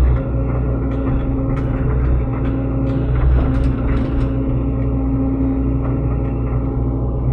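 SANY SY75C mini excavator's diesel engine running steadily under work, with a tone that drops in and out and scattered sharp knocks and clanks as the machine pushes bamboo roots and debris.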